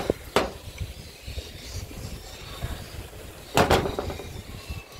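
Hands working earth wires and a hand tool at an electrical distribution board: a sharp click about a third of a second in, and a short cluster of louder knocks a little past three and a half seconds, over a low uneven rumble.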